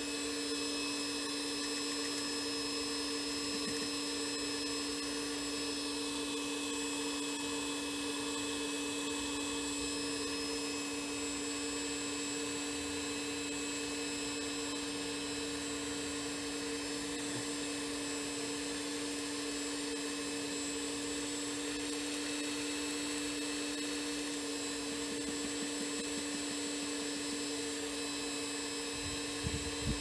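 Homemade vacuum cleaner built from a hair dryer, running steadily with a motor whine over a rush of air. A few light knocks near the end.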